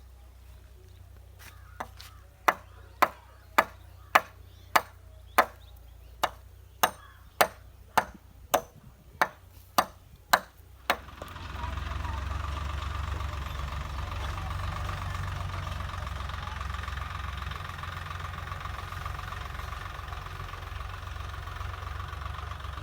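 A run of about fifteen sharp knocks, evenly spaced at a bit under two a second. They stop about eleven seconds in, and an engine starts running steadily.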